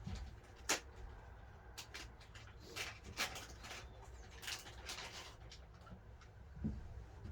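Scattered light clicks and taps as a new cap is fitted onto a boat engine, over a low steady rumble; the sharpest click comes just under a second in, with several more between about two and five seconds.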